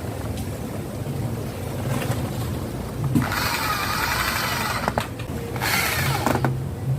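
A motorised power tool running in two bursts, the first about three seconds in and the second shorter near six seconds, its whine wavering in pitch, over a steady low rumble.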